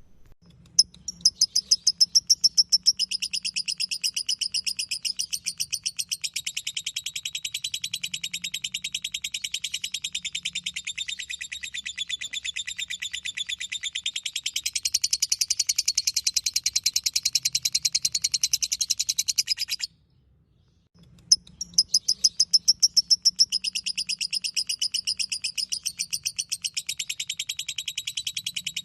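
Lovebird ngekek: a long, rapid, high-pitched chattering trill of fast repeated notes. It breaks off suddenly about twenty seconds in, then starts again a second later, its first notes the loudest.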